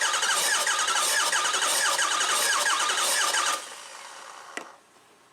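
Ford 6.0 Powerstroke V8 diesel turning over on its starter for about three and a half seconds without firing, cranked for a compression test on cylinder 1. The starter's whine rises and falls about three times a second with the compression strokes. It cuts off sharply, and a single click follows about a second later.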